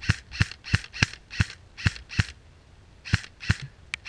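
Airsoft rifle firing a string of about nine single shots, each a sharp snap, roughly three a second, with a break of about a second in the middle.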